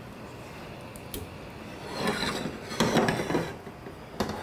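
Stainless-steel pot scraped and slid across the grates of a gas stove, with a few metallic clinks, starting about two seconds in.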